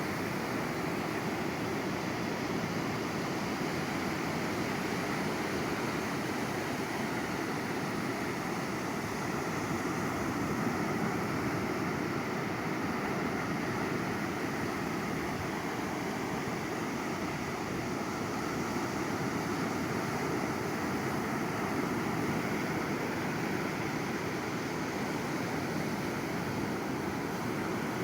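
Sea surf: waves washing ashore in a continuous rush that swells a little now and then.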